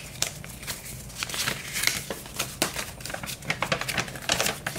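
A folded paper instruction leaflet being handled and unfolded, crinkling and rustling in many small irregular crackles.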